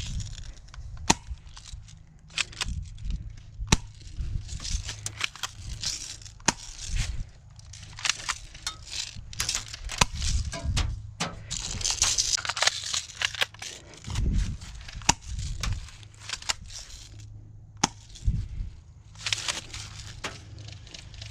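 Crunching and crackling of movement through dry leaves and brush, with many irregular sharp clicks and knocks and a low rumble of handling or wind on the microphone.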